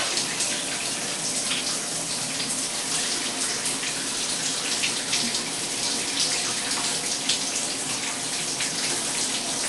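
Shower running steadily, its spray falling into a bathtub.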